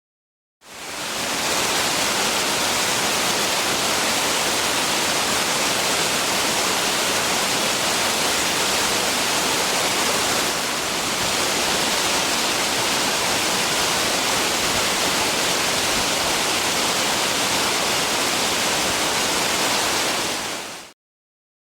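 Waterfall pouring, a steady, even rush of water that fades in just after the start and out near the end, with a brief dip about halfway through.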